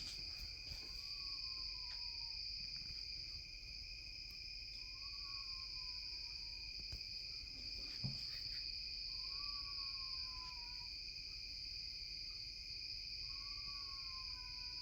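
Steady night chorus of crickets or katydids in the woods, a continuous high trill. Under it an animal gives a faint call four times, each about a second and a half long and dropping slightly in pitch, about every four seconds.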